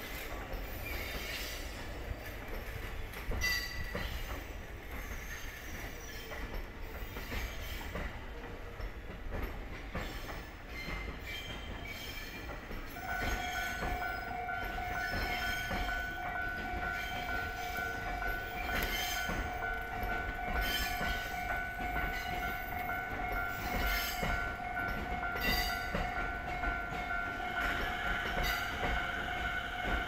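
A train running past with wheel clatter and clicks over the rail joints. About 13 seconds in, the level crossing's electronic warning bell starts ringing steadily and keeps on over the train noise, a higher tone growing stronger near the end.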